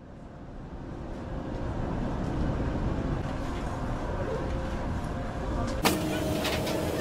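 Outdoor city street ambience with a steady rumble of traffic, fading in over the first couple of seconds. Near six seconds it switches abruptly to a louder ambience with a steady hum.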